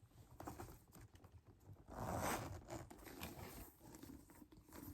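Hands handling the inside of a Togo-leather Hermès Birkin handbag: soft rustling and small clicks, with a longer, louder rustle about two seconds in.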